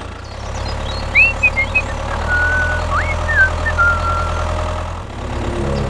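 Tractor engine running steadily at a low, even hum. Short high whistling chirps sound over it between about one and four seconds in.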